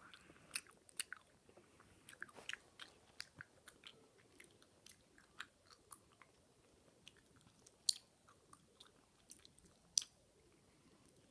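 Chewing gum close up: wet clicks and smacks at an irregular pace, a few a second, with two louder smacks late on.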